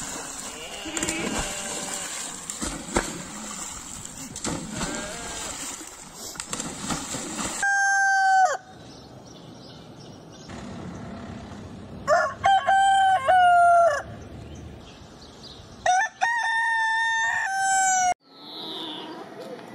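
Rooster crowing: one short crow about eight seconds in, then two full cock-a-doodle-doos about twelve and sixteen seconds in. Before the crows comes a noisier stretch of splashing water and sheep and goats.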